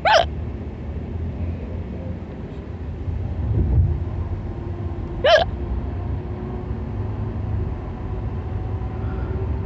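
A girl hiccuping twice, about five seconds apart, each a short, sharp high-pitched yelp, over the steady low rumble of a moving car.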